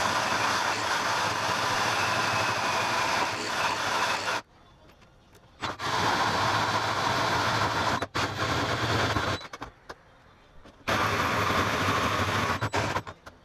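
Cordless drill driving a large hole saw through the sheet-metal front wing of a Toyota Hilux, the teeth grinding through the panel. It cuts in three runs of a few seconds, stopping twice for about a second, with a few short trigger blips before the last run.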